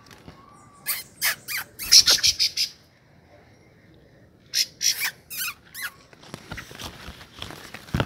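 Rufous-bellied thrushes giving harsh, rapid scolding calls in two bursts, about a second in and again near five seconds: the alarm of parent birds defending their fledglings against an intruder at the nest.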